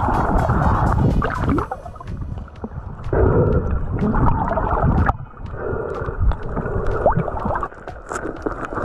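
Muffled underwater sound picked up by a camera in a waterproof housing: water moving and gurgling against the housing, with scattered faint sharp clicks. The sound changes abruptly a few times.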